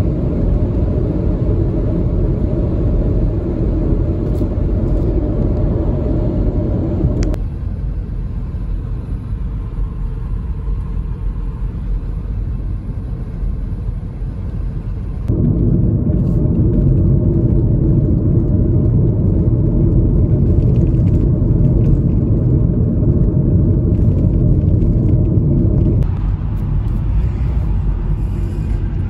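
Cabin noise inside a moving 2001 Audi A4 2.8 Quattro: a steady low rumble of road, tyre and engine noise. It drops abruptly about seven seconds in, jumps back up around fifteen seconds, and drops again near the end.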